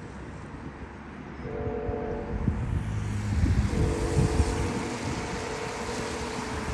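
Wind gusting across the microphone in low rumbling buffets, strongest in the middle, under a held chord of several steady horn-like tones that drops out about half a second in and comes back.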